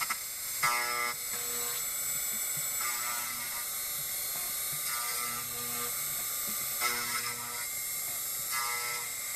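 CNC router spindle running at high speed while a small end mill cuts a slot in an aluminum plate, a steady high whine. Lower motor tones start and stop every second or two as the machine's axes move the cutter along the cut.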